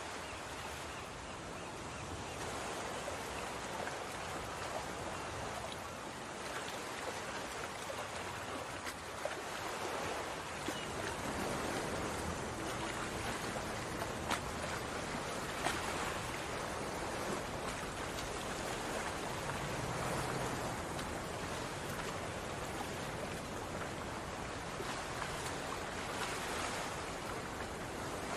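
Pot of water boiling on the stove: a steady bubbling hiss, with a few sharp clicks around the middle.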